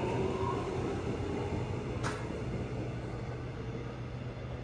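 Korail 371000-series electric train pulling out of the station: a brief rising motor whine near the start, then its running noise fading steadily as it leaves. A single sharp click about two seconds in.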